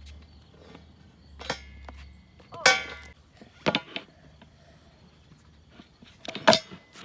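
Skateboard on concrete, with a low rolling rumble for the first three seconds, then several sharp knocks and clacks of the board. The loudest clack comes about six and a half seconds in.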